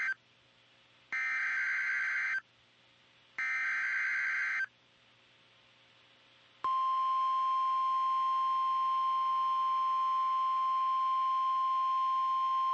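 NOAA Weather Radio Emergency Alert System signal announcing a Severe Thunderstorm Warning. The first part is the SAME header: buzzy digital data bursts, each a little over a second long, with the tail of one at the very start and two more after it. About 6.7 s in, the steady 1050 Hz warning alert tone starts and holds.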